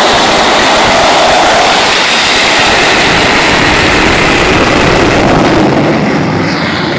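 Handley Page Victor K2's four Rolls-Royce Conway jet engines running loud at high power, with a whine over the noise. The sound drops off, losing its high end, from about six seconds in as the aircraft moves away.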